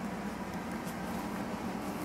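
Steady low background hum of a room, with a few faint ticks.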